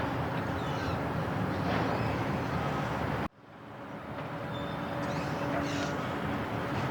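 Steady low rumble of large ferry engines with a faint machine hum, and a few faint bird calls above it. The sound drops out abruptly about three seconds in and fades back up.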